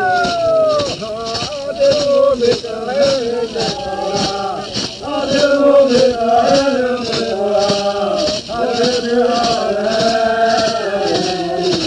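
Male voices chanting together in long, gliding held notes, over a steady high shaken beat of roughly two to three strokes a second.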